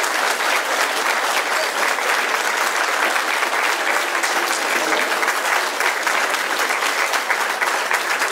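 Audience applauding: many hands clapping steadily and densely throughout.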